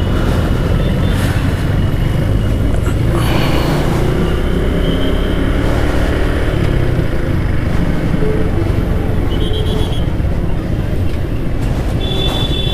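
Riding a Suzuki Gixxer motorcycle through traffic: a steady wind rumble on the microphone over engine and road noise. A steady high tone comes in near the end.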